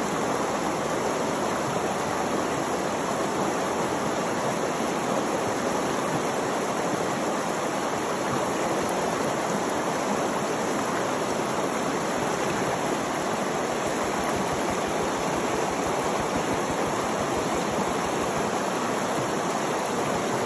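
Creek water running steadily, an even unbroken rush of flowing water.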